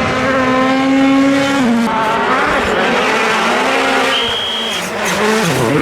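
A 2017 World Rally Car's turbocharged 1.6-litre four-cylinder engine at full effort on a rally stage. The revs hold high, drop, climb again and dip sharply near the end, with tyre noise. A brief high steady tone sounds a little after four seconds in.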